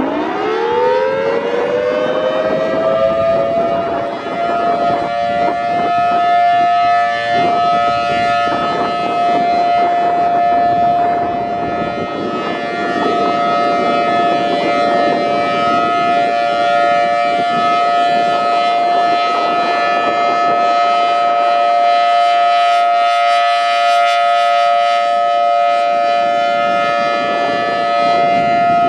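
Federal Signal Thunderbolt 1000T outdoor warning siren sounding its steady Alert tone: it winds up in pitch over the first few seconds, then holds a loud, steady two-note chord. Wind buffets the microphone throughout.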